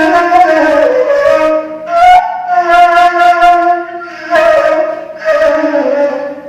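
Ney, the Arabic end-blown reed flute, played solo in an improvisation: breathy held notes with slides in pitch, in several short phrases, stopping near the end.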